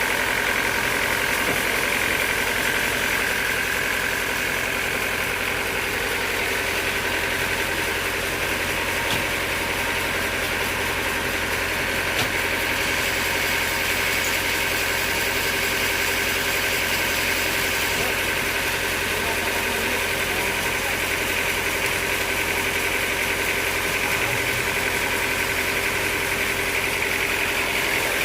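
Sawmill machinery running steadily: an even engine-like drone with several constant whining tones over it.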